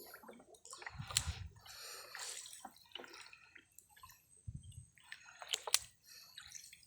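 Water dripping and sloshing as a wet gill net is pulled up out of canal water, with irregular splashes and a few sharp knocks.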